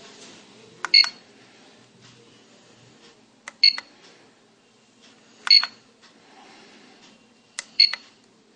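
A homemade microcontroller alarm clock circuit beeps four times at uneven intervals of about two seconds. Each beep is short and high, with a click at its start.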